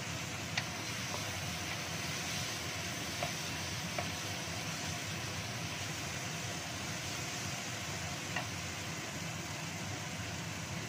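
Ground chili spice paste frying in oil in a wok, a steady sizzle as it is stirred with a wooden spatula, with four sharp taps of the spatula against the pan, the first about half a second in and the last past eight seconds.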